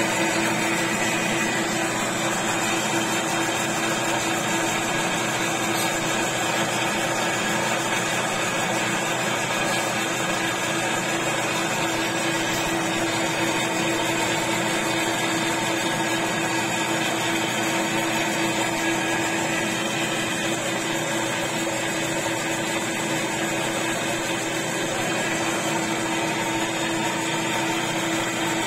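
Metal lathe running steadily: a constant machine hum with one clear, unchanging tone.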